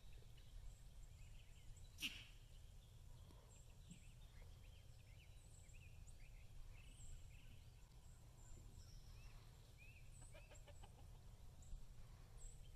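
Faint chickens clucking, with short chirps scattered throughout and a steady low rumble underneath. A single sharp click about two seconds in is the loudest moment.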